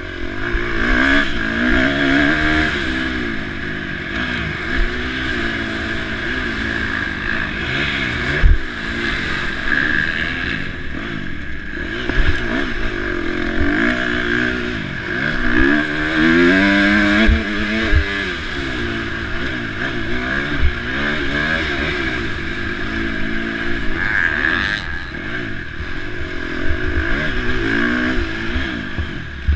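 KTM 350 SX-F four-stroke single-cylinder motocross engine being ridden hard, its revs rising and falling again and again through the gear changes, with scattered low thumps.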